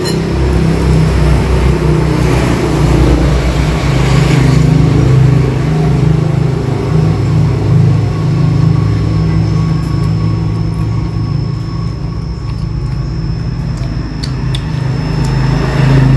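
Loud, steady running of a motor vehicle engine close by, a low hum throughout, with a rushing hiss swelling briefly a few seconds in.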